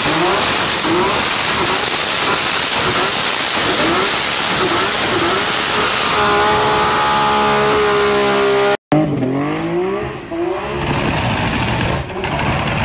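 Honda S2000 doing a burnout: a loud tyre hiss, with the engine note swooping up and down in quick repeated rises and falls, then held at a steady high pitch for a couple of seconds. After a sudden cut, the car's revs rise and fall as it slides around.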